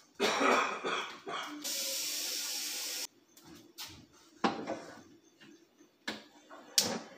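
Water running from a kitchen tap for about a second and a half, then cutting off sharply, as a pot is filled for pasta. Knocks and clatter of the pot being handled come before it, and a few sharp knocks follow as it is set down on the gas stove.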